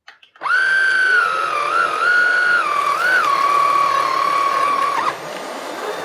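Viomi A9 cordless handheld vacuum cleaner switched on and running with its motorised floor brush on a shaggy door mat: a steady high motor whine that wavers in pitch as the brush works the pile and settles a little lower. About five seconds in the whine breaks off as the mat is drawn against the suction mouth and blocks it, and the vacuum stops.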